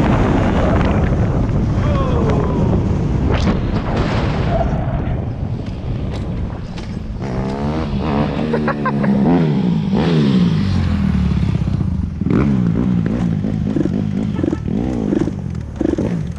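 Dirt bike engine running during riding, its pitch repeatedly rising and falling with revving and shifting from about seven seconds in.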